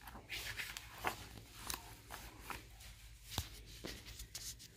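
Hand turning a page of a hardcover picture book: a few soft paper swishes and light clicks.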